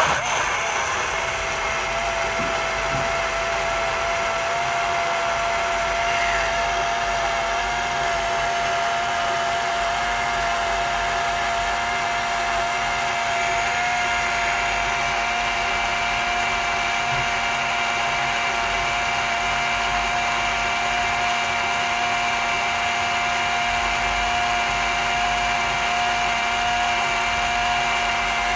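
Ninja BLAST cordless portable blender's battery-powered motor running one long blend cycle, its blade churning a smoothie with frozen pieces in it. A steady whine that holds one pitch, described as quite a long spin.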